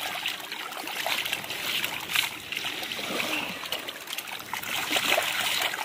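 A thin wash of sea water surging over wet sand and splashing around hands pressed into it, a steady fizzing rush dotted with small splashes.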